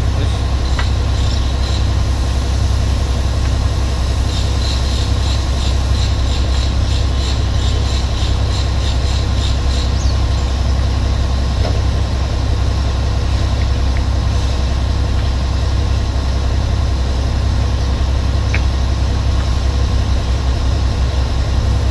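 Scania P410 XT truck's 13-litre six-cylinder diesel engine idling steadily with a loud low hum. A light regular ticking, about two a second, runs over it from about four to ten seconds in.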